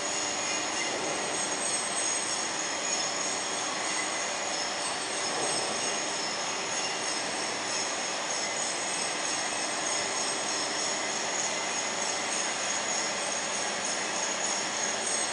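Steel coil slitting line running: steady mechanical noise as steel strip feeds from the coil through the slitter head, with several high, steady whining tones over it.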